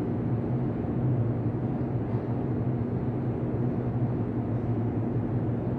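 Steady low hum of a large mosque prayer hall's ambient noise, with no recitation heard.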